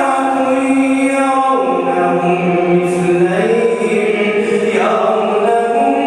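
A man's voice reciting the Quran in a slow melodic chant, holding long notes that step down in pitch about a second and a half in and climb back up in two steps later.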